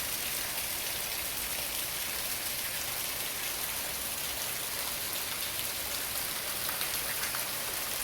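Tropical-storm rain falling steadily: an even hiss with scattered sharper drop hits.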